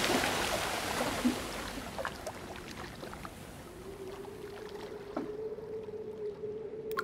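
Sea sound effects: a wash of waves fades away over the first few seconds, leaving scattered small water blips. A steady low hum comes in about halfway through.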